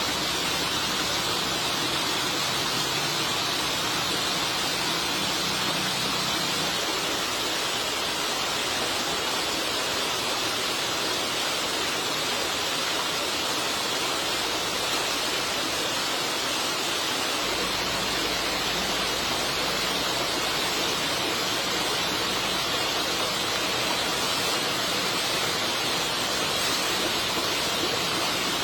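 Steady rushing sound of water, an even hiss with no distinct events or rhythm.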